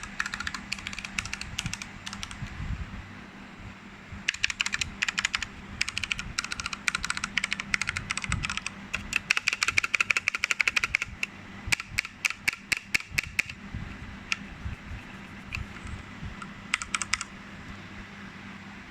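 Typing on a Ducky One 2 Mini mechanical keyboard with Cherry MX Brown tactile switches: fast runs of keystroke clacks in bursts, with short pauses between them.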